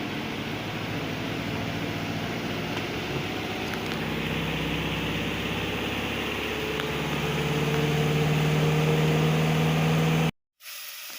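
Twin-tub washing machine's spin dryer running, spinning water out of the rinsed clothes. There is a steady machine hum that grows louder in the last few seconds, then it cuts off abruptly near the end.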